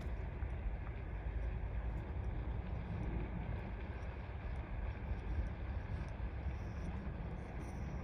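Wind buffeting the microphone: a steady, uneven low rumble with no distinct events.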